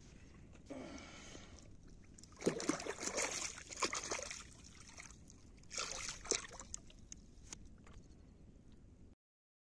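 Water sloshing and splashing in three bouts: a short one about a second in, a longer, louder one from about two and a half to four seconds, and another near six seconds, over a low steady background.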